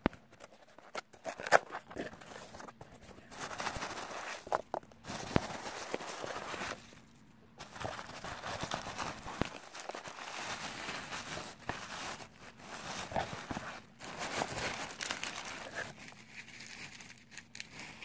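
Hands rummaging through a cardboard box of foam packing peanuts and tissue paper: crinkling and rustling in bursts with sharp crackles, broken by short pauses.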